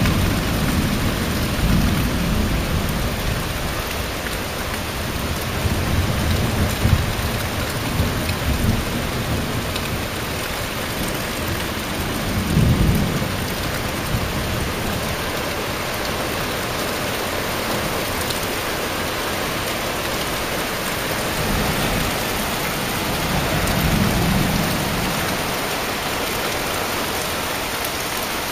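Heavy rain pouring steadily on trees and foliage. Deep low rumbles swell under it several times: longest through the first several seconds, briefly and loudest about halfway in, and again near the end.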